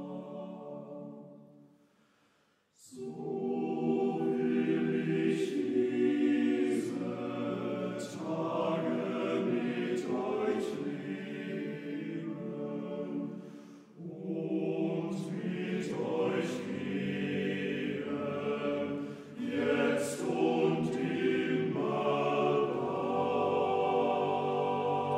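Men's choir singing. A phrase dies away and, after a short break about three seconds in, the choir sings on, with one brief breath pause midway and a fade-out at the end.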